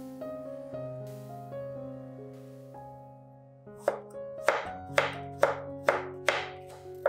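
Background music; about four seconds in, a chef's knife starts slicing a green bell pepper into strips on a wooden cutting board, with sharp chops about two a second.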